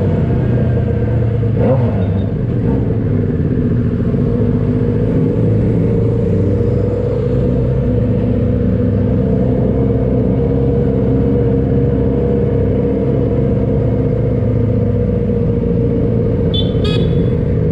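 Motorcycle engine running steadily while riding at an even speed, its pitch holding level throughout.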